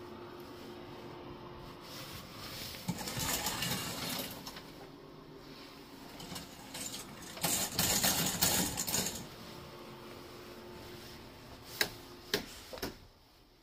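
Shower curtain hooks scraping and rattling along a metal curtain rod as the curtain is pulled open, then, a few seconds later, pulled shut again. A faint steady hum runs underneath, and two sharp clicks come near the end.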